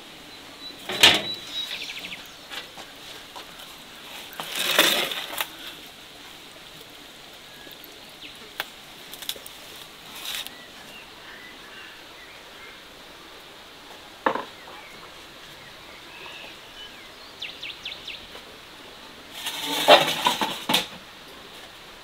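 Scattered knocks and clinks of things being handled, the loudest about a second in and near the end, over faint steady background noise.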